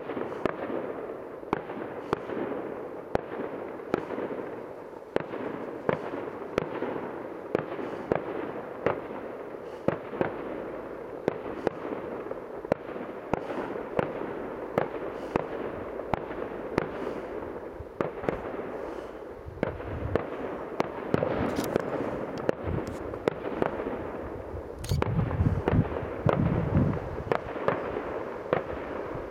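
Professional aerial fireworks display: a rapid run of sharp bangs from bursting shells, about one to two a second, over continuous crackling, with heavier, deeper booms about two-thirds of the way through and again near the end.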